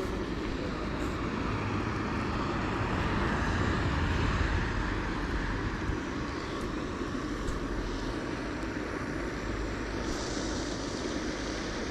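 Steady outdoor rumbling noise with no clear tone, swelling slightly a few seconds in and then easing off.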